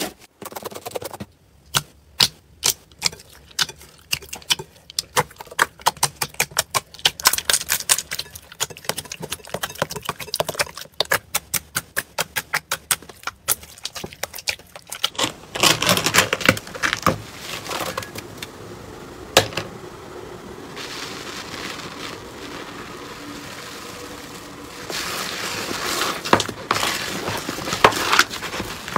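Slime being squeezed, poked and kneaded by hand, with many sharp popping clicks of air pockets bursting through the first half. After that it becomes a more continuous squishing with scattered pops.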